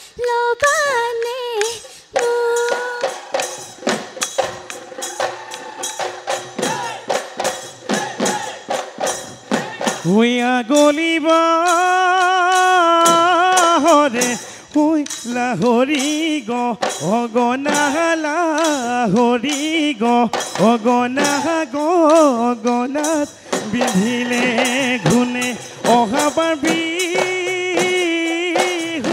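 Live Bihu folk music: dhol drums played in fast, dense strokes, with jingling percussion. About ten seconds in, a wavering melody line comes in over the drumming and carries on.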